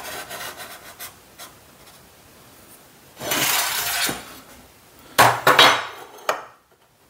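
Thin metal valley flashing being handled on a workbench: a rough rustle of the sheet sliding and flexing about three seconds in. A metal speed square then clatters down onto the sheet in a few sharp knocks, the loudest part, followed by a single click.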